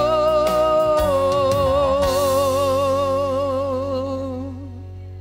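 A man singing a gospel song, holding one long note with a wavering vibrato over instrumental backing. The voice fades out about four and a half seconds in, while the backing holds a low chord.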